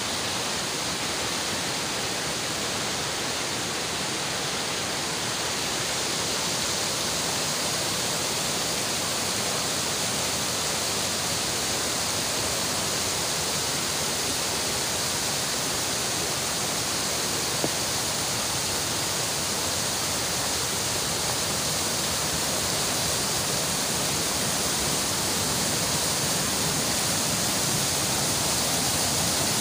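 Rushing water of a shallow rocky stream and small waterfalls, a steady even rush that grows slightly louder near the end.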